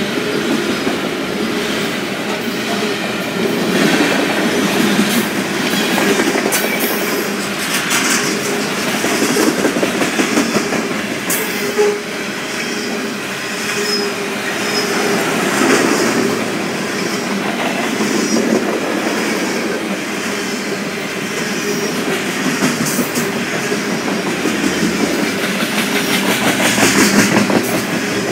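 Canadian Pacific freight train of covered hopper cars rolling past: a steady rumble and rattle of steel wheels on rail, with clickety-clack as the wheels cross rail joints.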